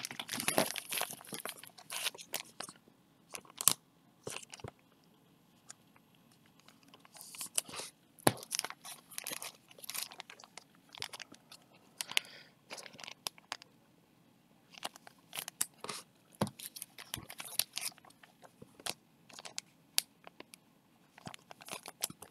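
Plastic card sleeves and card packaging crinkling and rustling as trading cards are handled and slid into sleeves, with scattered sharp clicks. It comes in irregular bursts with a few short pauses.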